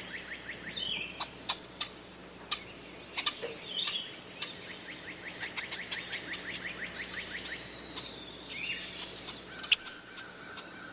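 Several birds singing and calling: rapid trills of short repeated notes, sharp single chips and brief chirps, with a held whistled note near the end.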